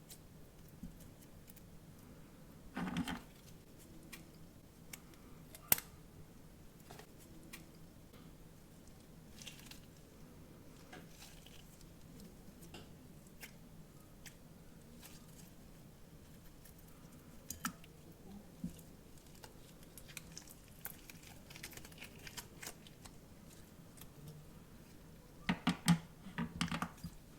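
Scissors cutting into a stress ball, with faint scattered clicks and crinkles from handling it. A short louder crunchy burst comes about three seconds in, and a cluster of louder snips comes near the end.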